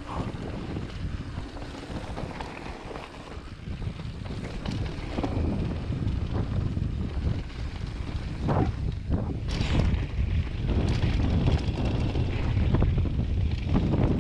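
Wind rushing over the helmet camera's microphone as a Vitus Sommet mountain bike rolls fast down a dirt trail, its tyres rumbling on the ground. The rumble grows louder about five seconds in, and sharp clattering knocks of the bike over bumps come around the middle.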